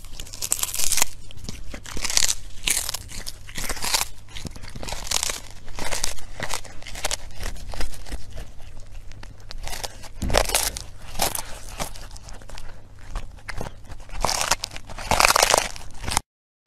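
A kitten chewing and crunching a small whole raw fish, with many irregular crunches as it bites through the flesh and bones. The sound cuts off suddenly near the end.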